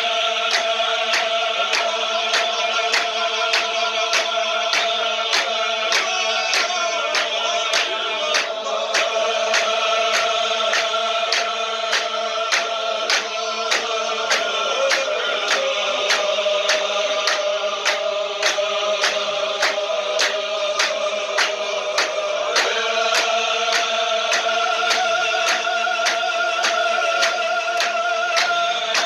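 Men's group zikr: many male voices chanting in unison on long held notes, over steady hand clapping about twice a second. The chant's pitch shifts down in the middle and back up later.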